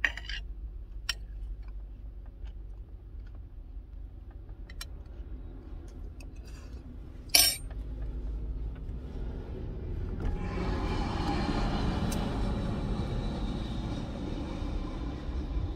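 Steady low vehicle rumble heard from inside a car, with a few sharp clicks, the loudest about seven seconds in. About ten seconds in, a louder engine noise swells up and holds, as a vehicle runs close by.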